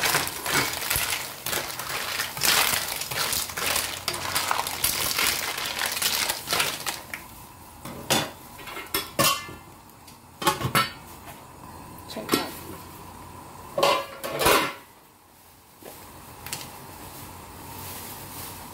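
Clam shells clattering against a wok as they are stirred with a spatula, then a few separate clinks and knocks as water is poured in from a metal pot. A quieter steady hiss of the water bubbling near the end.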